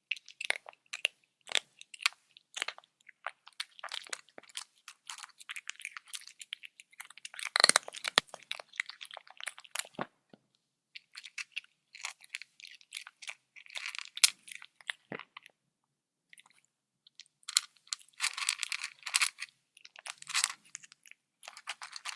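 A cat chewing and crunching food in quick, irregular bites, pausing for about two seconds two-thirds of the way through before crunching again.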